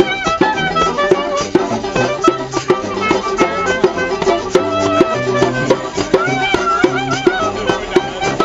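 Live folk band playing an upbeat tune: a clarinet carries a wavering, ornamented melody over strummed banjo, with a washboard and a djembe hand drum keeping a steady beat.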